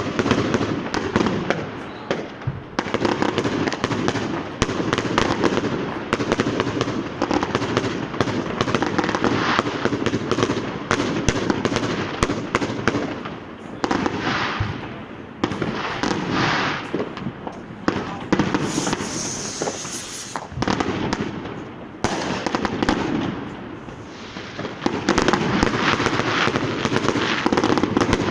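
Street fireworks and firecrackers going off in a dense, continuous barrage of sharp cracks and bangs, many per second, with a few brief lulls.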